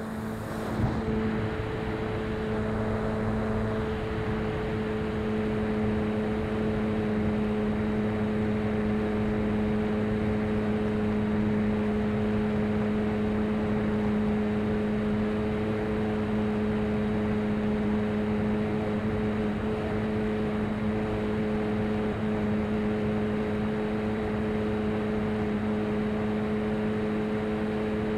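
Electric motor and propeller of a SkyClimber FPV model plane running at a steady throttle, one held humming tone with a rush of air noise under it. A single short knock about a second in.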